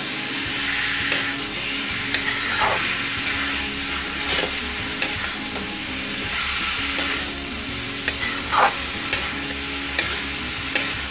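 Metal spatula stirring chunks of boiled jackfruit and fried potato through spice paste in a frying pan, scraping and knocking against the pan about once a second over a steady sizzle of hot oil.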